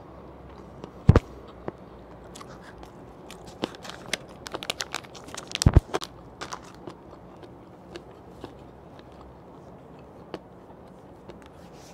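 Close-miked handling and mouth sounds: a sharp thump about a second in, then a dense run of crinkling and clicks as a plastic wet-wipe packet is opened and a wipe pulled out, with another couple of thumps in the middle of it. After that, only a few scattered small clicks while she wipes her hands.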